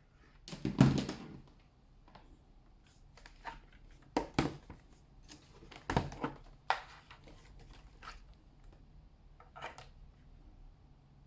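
Scattered clicks and knocks of hard plastic objects being handled and set down, loudest as a thud about a second in.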